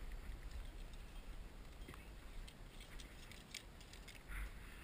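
Faint rope handling: the climbing rope pulled through a belay device, with scattered small clicks and jingles of metal climbing hardware.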